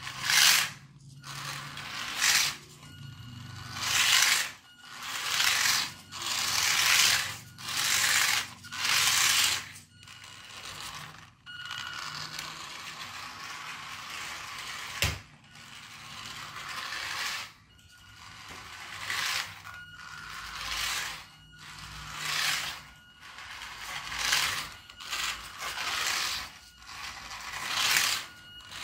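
Small brushed electric motor and plastic gears of a radio-controlled toy car whining in short bursts, about one every second or two, as the throttle is blipped. Its hard plastic wheels rattle and scrape across a wooden floor. A longer steady run comes about halfway through, with one sharp knock about fifteen seconds in.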